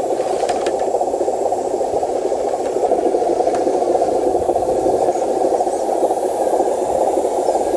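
Electric motor and gearbox of a model RC dump truck running with a steady, grainy whir and rattle.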